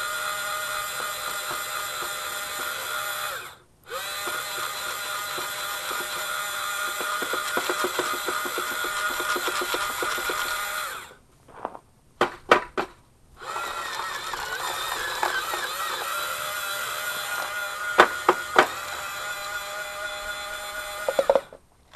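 DIY pellet feeder's electric motor running with a steady whine in three runs separated by brief stops, with a few sharp clicks in the gap before the last run. Crackling over the second run is the feeder crushing 8mm fish-food pellets as it forces them through.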